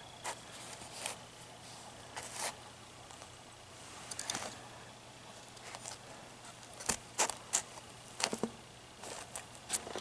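Scattered light clicks and taps as a small metal electroluminescent dash-light power pack is handled and turned over by hand, with a cluster of clicks near the end, over a faint steady low hum.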